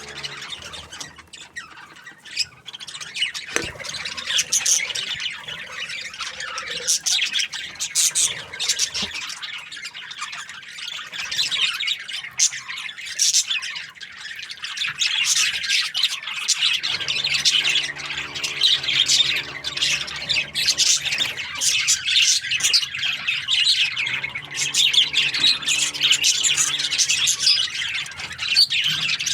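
A flock of budgerigars chattering and squawking, many birds calling at once without a break. A low steady hum sits underneath through the second half.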